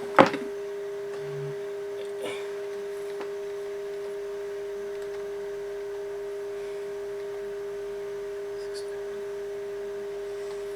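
Steady test tone from an AA5 tube radio's speaker: the signal generator's modulation tone being picked up as the set is aligned by ear. A single sharp click sounds just after the start.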